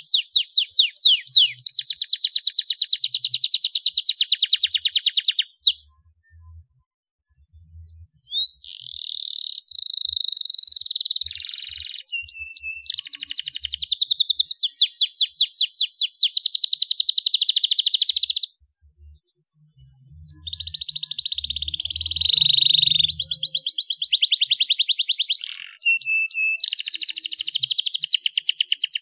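Domestic canary singing in long phrases: rapid trills of fast repeated notes mixed with rising whistled notes, breaking off briefly about six seconds in and again near nineteen seconds.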